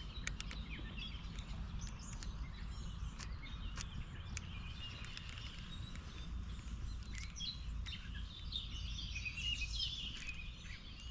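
Small birds chirping on and off over a low steady rumble, with a few short ticks in the first half.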